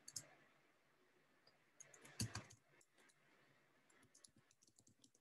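Faint computer keyboard keystrokes: a few scattered clicks, the loudest small cluster about two seconds in, with near silence between them.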